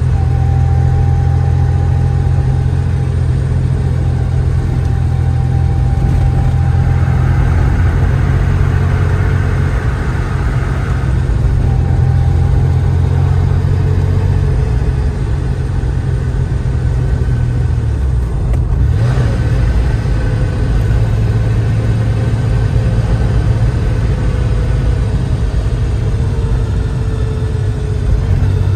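1988 Porsche 911 Turbo's air-cooled, turbocharged flat-six running steadily under way, with road and wind noise, heard from inside the cabin. The engine note breaks briefly about two-thirds of the way in.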